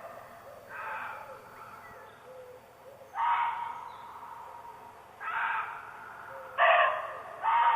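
Muntjac deer barking: single short, hoarse barks repeated every two seconds or so, one faint early call, then louder ones from a nearer animal.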